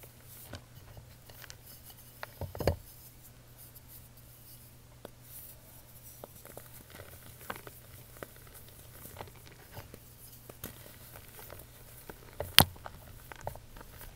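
Hands handling fine powder in a tray: soft scattered crackles and light taps. Two sharper knocks, one about two and a half seconds in and a louder one near the end.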